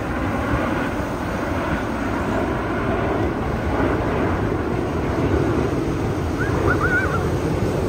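Formation of small jet aircraft passing overhead: a steady rumble of jet engines. A few short, high chirps come near the end.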